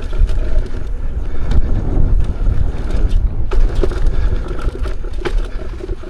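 Electric unicycle riding fast over a rocky trail: a strong low rumble of wind buffeting the microphone, with scattered clicks and knocks of the wheel and suspension hitting rocks and stones pinging around.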